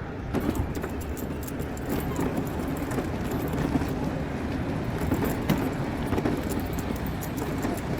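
Busy town street ambience: steady traffic noise with a faint murmur of distant voices and many small clicks.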